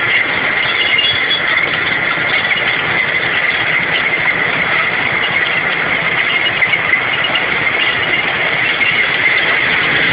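Tank on the move at close range: loud, steady engine and running-gear noise with a constant high whine.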